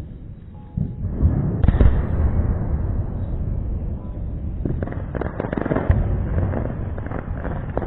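A 2-inch single sky shot shell firework (Supreme Rocking Dragon Red) going off: a sudden loud bang about a second in, followed by several seconds of rumbling noise with further sharp pops around five to six seconds in.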